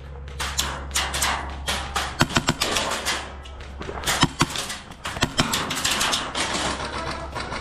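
Airsoft gunfire: an irregular run of sharp cracks and clicks, bunched into quick clusters about two seconds in and again around four to five seconds in.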